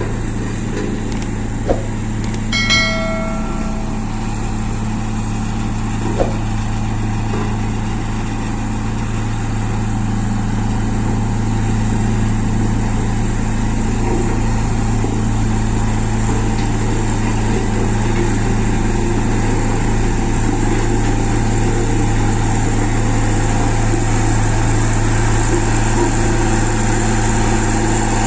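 Road roller's diesel engine running steadily, growing a little louder about ten seconds in. A short bell-like chime rings once about three seconds in.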